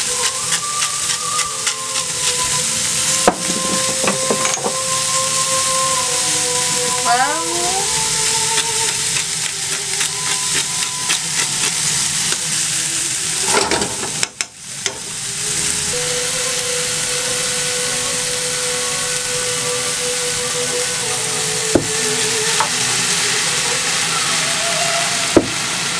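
Shelled clams and onion sizzling in a frying pan on a gas stove, with a utensil stirring them. The sizzle briefly drops out about halfway through, and there are a few single clicks.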